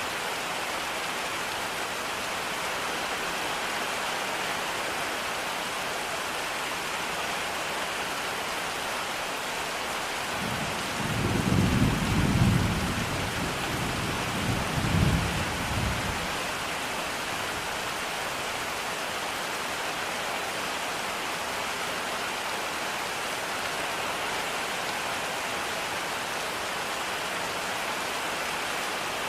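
Steady rain falling, with a low roll of thunder about ten seconds in that swells twice over some five seconds before fading back into the rain.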